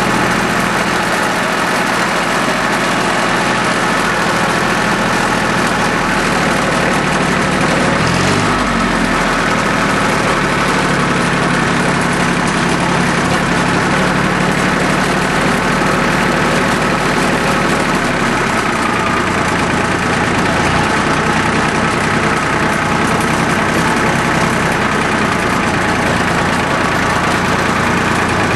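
Small Yanmar YM1401D tractor's diesel engine running steadily while the tractor is driven, with a brief change in pitch about eight seconds in. The engine is running again after air was bled out of its fuel system.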